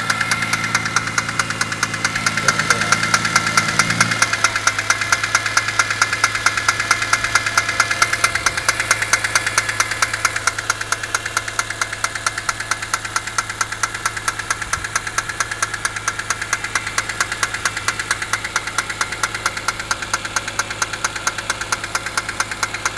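BMW E46 M3's S54 straight-six running with a fast, even rattling knock, which the owner suspects comes from the VANOS unit or the timing chain tensioner.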